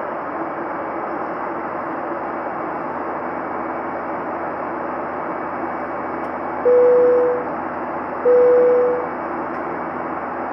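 Steady cabin noise of a Boeing 737-900 airliner in flight, with the cabin chime sounding twice at the same pitch, about a second and a half apart, each note fading out.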